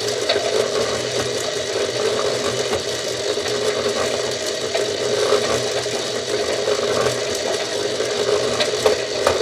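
Toy washing machine's small electric motor spinning the drum, a steady whir with a few faint clicks.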